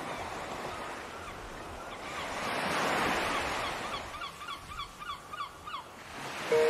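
A swell of rushing, surf-like noise, then a quick run of short honking calls, about five a second, like geese or other birds.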